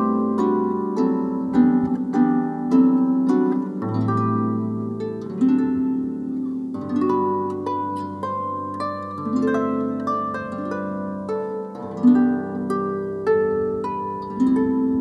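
Solo concert harp playing a slow melody of plucked, ringing notes over low bass notes that sound and sustain underneath.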